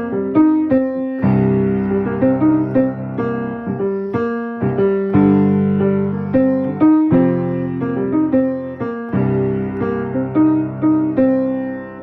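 Piano or keyboard played with both hands. The left hand holds low open fifths that change every couple of seconds, and the right hand improvises a melody of short notes drawn from G, B flat, C and E flat.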